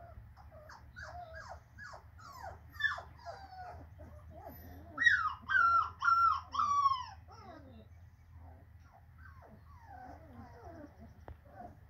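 Young puppies whimpering and squealing in a string of short, high, falling cries, with a run of four louder ones about five seconds in.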